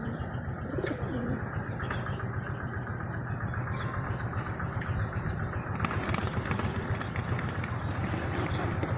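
Pigeon wings flapping, with more frequent wing clatter from about six seconds in, over a steady low rumble.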